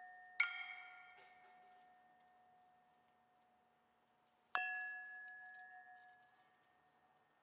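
Small brass bells struck twice, about half a second in and again about four and a half seconds in, each ringing clearly and fading away over a few seconds.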